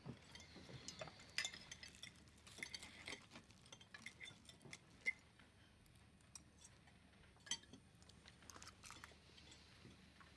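Faint clinks and scrapes of dessert forks on china plates as a flaky cream-topped pastry is cut and eaten, with a few sharper clinks standing out about a second and a half, five and seven and a half seconds in.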